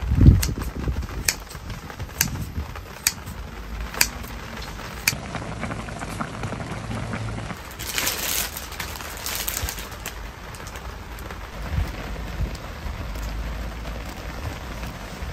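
Rain falling, with single drops tapping about once a second. There is a low thump just after the start, and about eight seconds in the plastic wrapper of an instant ramen packet crinkles for two seconds as it is torn open.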